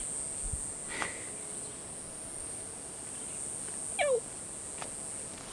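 Steady high-pitched drone of insects, with a faint click about a second in and a short, louder falling call about four seconds in.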